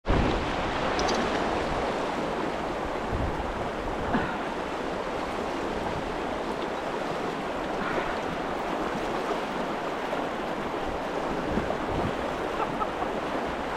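Steady rush of a flowing river, an even wash of water noise.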